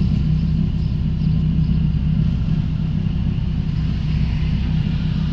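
Dodge Ram SRT-10's V10 engine idling, heard from inside the cab as a steady low rumble.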